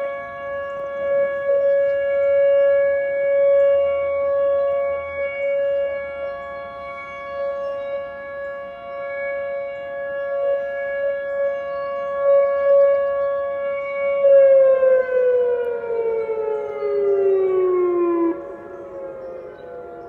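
Outdoor civil-defense warning siren sounding a steady tone during a siren test. About fourteen seconds in it winds down, its pitch falling, then drops sharply in loudness near the end as the fading tone keeps sliding lower.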